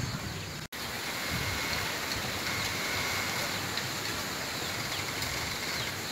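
Wind rustling through a bamboo grove's leaves, a steady hiss. The sound cuts out for an instant under a second in.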